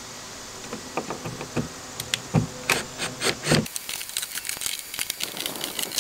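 Cordless drill-driver backing out the screws that hold an RV door's window frame: a few knocks and clicks as the bit is set on a screw, then from about three and a half seconds in the tool runs with a rapid, dense ticking.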